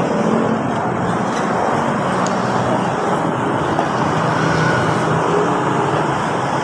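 Steady road traffic noise, a continuous rumble and hiss of passing vehicles.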